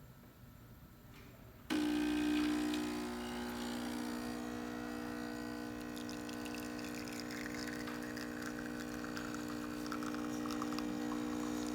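DeLonghi Dedica EC680 espresso machine's vibratory pump kicks in about two seconds in and runs with a steady hum, pulling a double shot, with espresso flowing into the cup.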